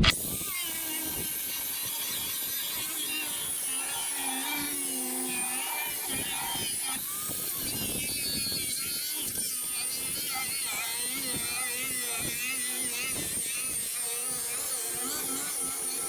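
Chicago Electric 4-1/2 inch angle grinder (Harbor Freight 60372) running steadily while grinding, its high whine wavering in pitch.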